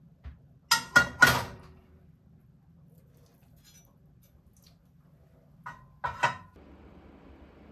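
Metal spatula clinking against cookware as a fried egg is lifted and set down: three sharp, ringing clinks about a second in, then three more near the end.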